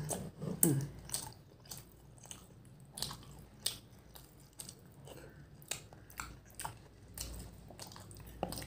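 Close-miked chewing and mouth sounds of someone eating soft food, meatballs and mashed potato, with scattered sharp clicks, about one or two a second, as the spoon knocks against the plastic food container.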